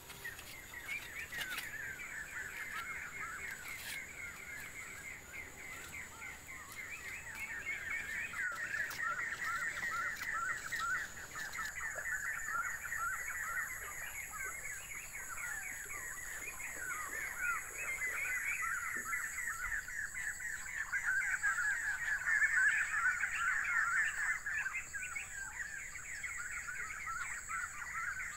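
A dense, continuous chatter of many bird calls, getting louder in the second half, over a steady high-pitched tone.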